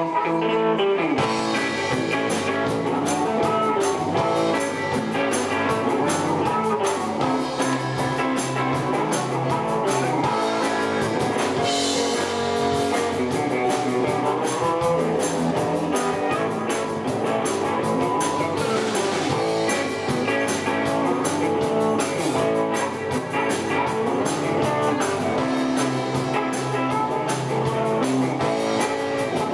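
Live blues band playing an instrumental passage: electric guitar, bass guitar and drum kit, with a harmonica played through a microphone. The drums come in fully about a second in.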